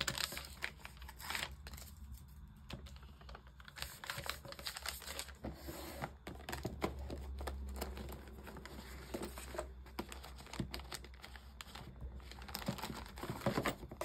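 Paper envelopes rustling and being flicked through by hand in a clear plastic storage box, with many small clicks and taps of handling.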